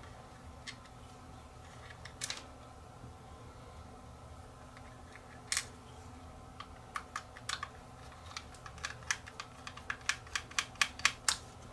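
Small screwdriver driving screws back into a plastic smoke alarm housing: scattered sharp clicks, then a quickening run of about two or three clicks a second that grows louder over the last few seconds.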